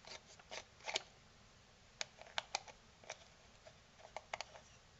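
Tight threaded front cover of a plastic dome CCTV camera being twisted off by hand, giving about ten irregular sharp clicks as it turns.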